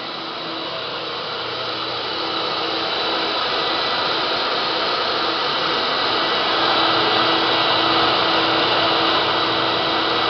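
Nordic1 electric truck-mount carpet-cleaning machine running: a steady motor whine and rush of air with a constant hum, growing louder over the first several seconds and then holding steady.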